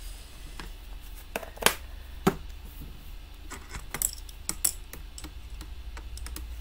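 Scattered light clicks and taps of hands handling a clear acrylic stamp and card stock on a plastic stamp-positioning tool, a dozen or so small knocks at uneven intervals.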